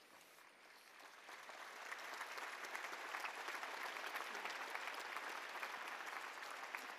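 Large crowd applauding, swelling about a second in and easing off slightly near the end.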